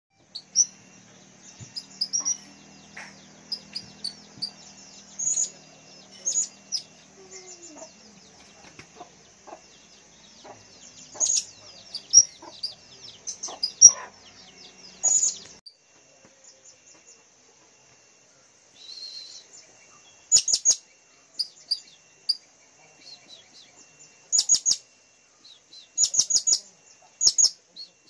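Blue-crowned hanging parrots (serindit) calling: rapid, shrill high-pitched chirps and twitters, with loud sharp calls every second or two and a short lull a little past the middle.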